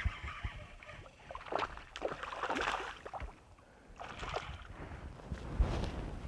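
A hooked largemouth bass splashing and thrashing at the water's surface as it is reeled up beside the boat, in several short bursts of splashing.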